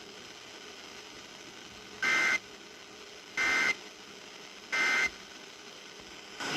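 Emergency Alert System End of Message signal: three short, identical bursts of SAME digital data, a harsh warbling buzz of two alternating tones, evenly spaced about a second and a half apart, marking the end of the alert. Another sound starts right at the end, over a faint steady hiss.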